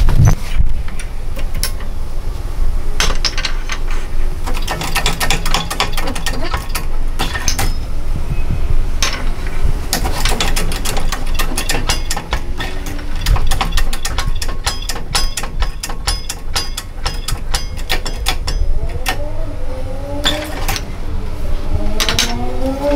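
Metal clicks, knocks and clatter of a Bajaj CT100 crankshaft and connecting rod being handled and set up in a hydraulic shop press, with a rapid run of clicks in the middle, over a steady low hum. A few rising squeaks come near the end.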